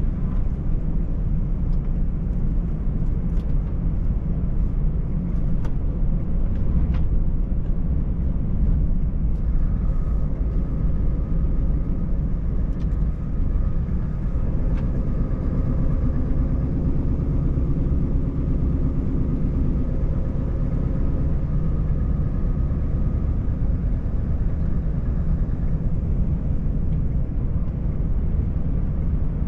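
Steady low rumble inside the cab of a Scania 590S truck cruising on a snowy road: its 13-litre straight-six diesel and the tyres. There are a few faint clicks in the first several seconds, and a faint humming tone joins in the middle and fades before the end.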